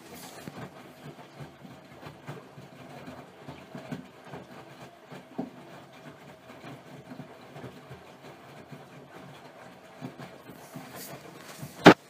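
AEG Öko-Lavamat 84720 front-loading washing machine tumbling a wash load: the drum turning with a steady churning noise and irregular soft knocks and thumps of wet laundry. One sharp, loud knock comes just before the end.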